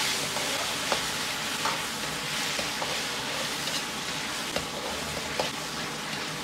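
Tomato and potato chunks sizzling in a hot oiled wok as they are stir-fried, with the metal ladle clicking and scraping against the wok now and then.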